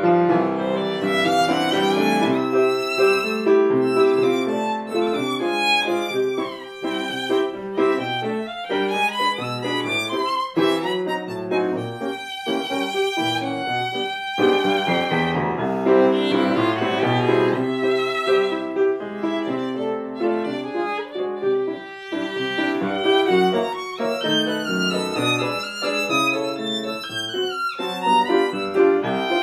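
Violin and piano duo playing: a bowed violin melody with sliding notes over piano accompaniment.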